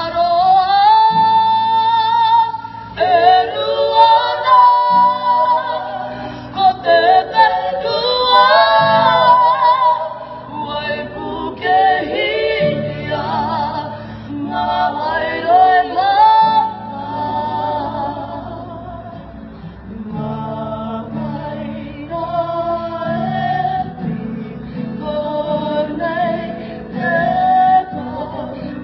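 A group of voices singing a slow song, a female voice prominent, over steady low sustained chords that change every few seconds.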